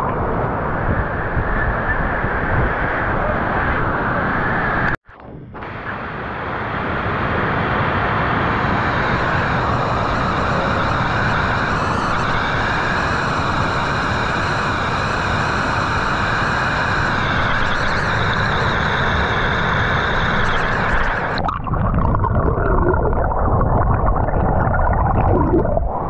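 Steady, loud rushing of water overflowing and cascading down the stone steps of Bhushi Dam. The sound cuts out suddenly about five seconds in and then returns.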